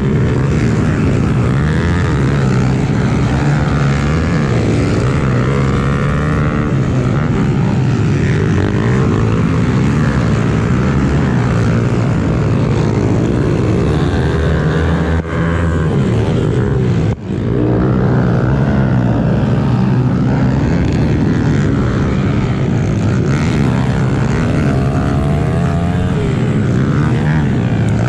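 Honda CRF110F pit bike's single-cylinder four-stroke engine running hard under racing throttle, heard from on the bike, with other pit bikes racing close by. The pitch rises and falls with the throttle, and the sound dips briefly twice just past the middle.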